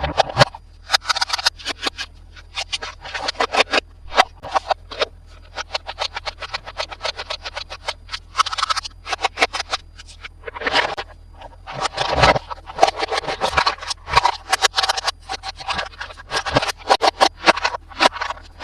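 Toy unboxing handling: rapid, irregular crinkling, scraping and clicking of packaging and plastic toy parts being handled close to the microphone.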